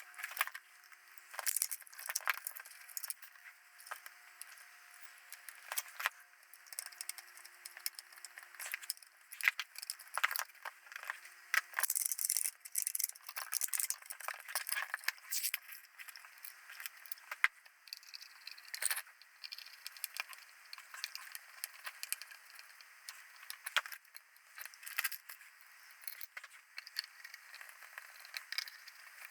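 Irregular clicks, taps and rattles of small metal parts and screws being handled as a camera unit is put back together.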